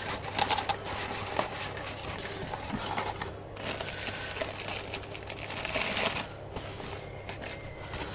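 Paper napkins rustling and a plastic-wrapped napkin pack crinkling as they are handled, a busy run of small rustles and scrapes.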